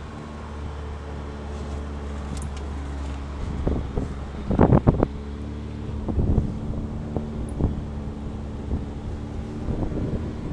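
Off-road 4x4's engine pulling steadily up a steep, rutted dirt hill climb, heard from inside the cab. Knocks and thumps come as the vehicle jolts over ruts and rocks, loudest in a quick cluster about halfway through, with a few lighter ones after.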